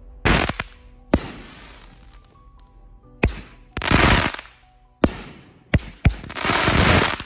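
Pre-loaded firework mortar tubes firing: a series of sharp bangs with two longer stretches of hissing crackle, over background music.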